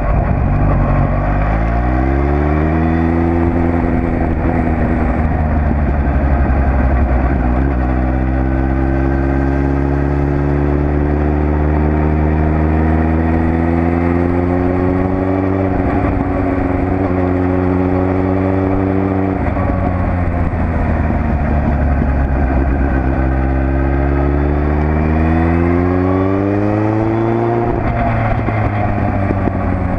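Suzuki Bandit 1200 S inline-four motorcycle engine pulling away and accelerating. Its pitch climbs, drops at a gear change about seven seconds in, then rises slowly. It eases off and slows between about sixteen and twenty seconds in, climbs again, and drops near the end.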